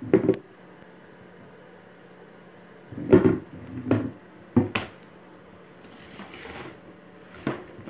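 Molded plastic Camco battery box and its lid being handled: hollow plastic knocks and clatters as the box is tilted and the lid worked off. There is a knock at the start, a run of bumps about three to five seconds in, a softer scuffing after that, and one more knock near the end.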